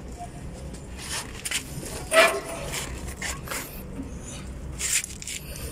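Hands handling an insulated copper refrigerant pipe and hand-threading its brass flare nut onto the outdoor unit's suction service valve: a series of short rustles and scrapes, the loudest about two seconds in.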